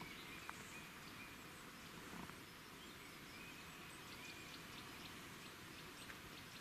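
Faint outdoor ambience: a steady low hiss with thin, high calls that come and go, and a few faint ticks.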